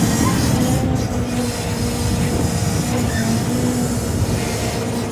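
Log truck's hydraulic knuckle-boom loader working: the diesel engine runs under load driving the hydraulic pump, with a whine that drops in and out as the boom moves a log.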